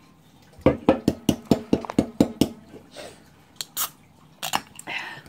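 Drink can's pull tab clicking, then popping open near the end with a short hiss of escaping gas. Before that, about a second in, a person's voice comes in about ten quick bursts.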